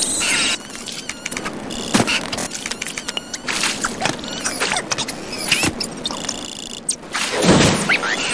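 Cartoon creature sound effects: squeaky, gliding chirps and chatter with buzzing, ending in a louder yell about seven seconds in.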